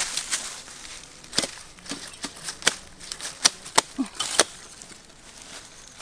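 A machete chopping at the base of a young bamboo shoot: a run of sharp, separate strikes, about three a second, that stops a little after four seconds in.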